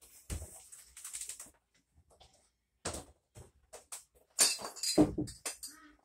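Irregular metallic clinks and knocks of parts being handled inside the cabinet of a Whirlpool top-load washer, with a cluster of louder bangs and a heavy thump about five seconds in.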